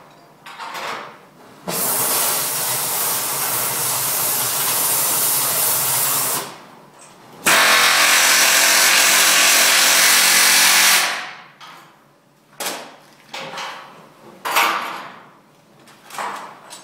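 A power tool running in two long bursts, the first about four and a half seconds and the second about three and a half seconds, each cutting in and out sharply, while work goes on on a steel vehicle chassis. Several short knocks and scrapes of tool and metal handling follow.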